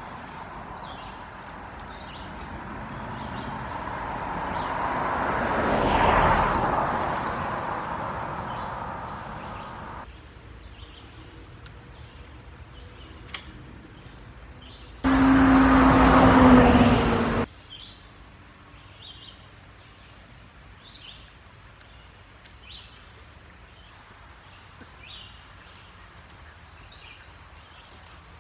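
Road traffic passing beside the creek: a vehicle swells and fades, loudest about six seconds in. A second, louder vehicle pass lasts about two seconds around fifteen seconds in, with a low hum that drops slightly in pitch. Small birds chirp throughout.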